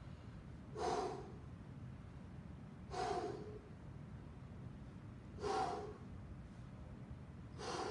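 A man breathing out hard four times, about every two and a half seconds, winded from an intense workout.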